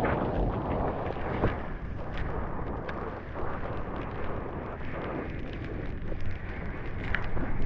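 Ocean surf: a steady rushing, churning wash of water with scattered small splashes and clicks.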